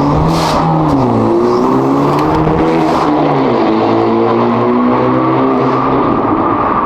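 Hyundai Elantra N's turbocharged 2.0-litre four-cylinder running through a titanium mid-pipe with the resonator deleted. The engine note dips, then rises with light acceleration and holds steady, with a short hiss about half a second in.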